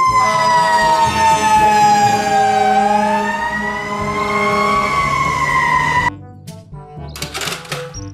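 Fire engine siren wailing: one long tone that slowly falls in pitch, climbs back up, holds, and cuts off abruptly about six seconds in.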